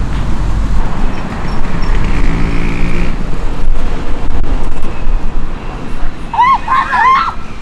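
Wind buffeting the microphone: a loud, steady low rumble. A few short, arching high calls come near the end.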